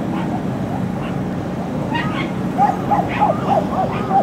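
A dog yapping in a quick run of short, high barks, about four a second, starting about two seconds in, over a steady low background hum.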